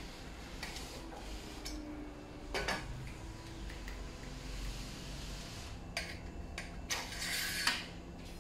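Black stand tubes and plastic connectors being handled and fitted together: scattered clicks and knocks, with a louder knock about two and a half seconds in and a short scraping rattle near the end.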